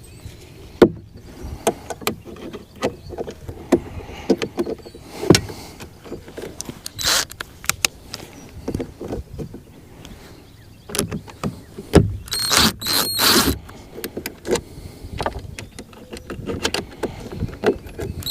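Hand-work clatter: irregular clicks and knocks of tools and small metal parts being handled, with a short cluster of louder scraping, rattling noises about twelve seconds in.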